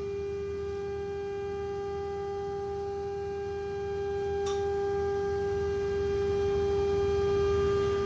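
CNC router spindle running at constant speed, a steady high-pitched whine over a low rumble, with one brief click about halfway through.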